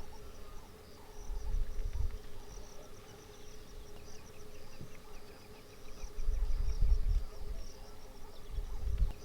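Insects chirping in rapid trills over a steady hum. A low rumble swells and fades three times.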